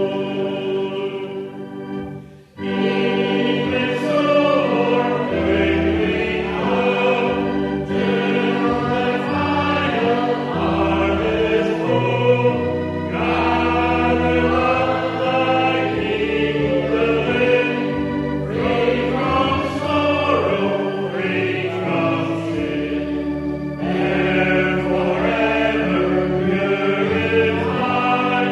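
Congregation singing a hymn with instrumental accompaniment, breaking off briefly about two and a half seconds in before the next line begins.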